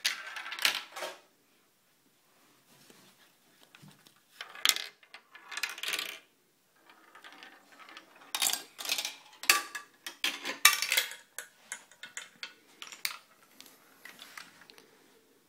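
Marbles running through a marble run: bursts of rolling clatter and sharp clicks as they drop and strike the track, with short quiet gaps between. The busiest stretch of clicking comes from about eight to thirteen seconds in.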